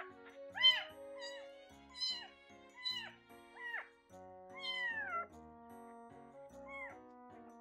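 Newborn kitten mewing over and over in short, high, rising-and-falling calls, with one longer falling mew about halfway through, over background music.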